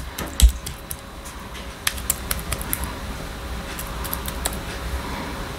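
Light, irregular clicks and taps of hands and utensils at work preparing food, with one louder knock about half a second in, over a low steady hum.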